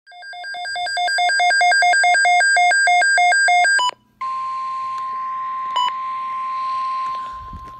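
Emergency alert tones: a rapidly alternating two-note electronic beeping for about four seconds, which cuts off abruptly. After a brief gap, a steady single high tone sounds over radio hiss. The steady tone is typical of the NOAA Weather Radio 1050 Hz warning alarm tone.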